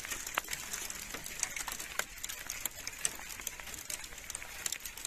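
Volcanic lapilli and ash pattering on a car roof and the ground around it: scattered sharp ticks at an irregular pace over a steady hiss.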